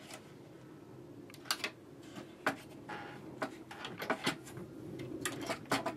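Watercolour paper being pulled tight and refixed on a drawing board: a string of light clicks and knocks from handling the sheet and its fixings, starting about a second and a half in.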